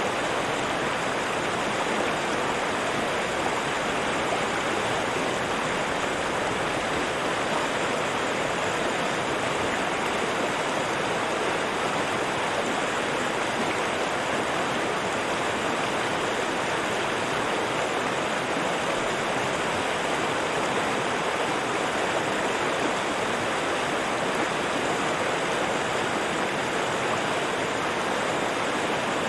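River water rushing and splashing steadily, an unbroken even flow.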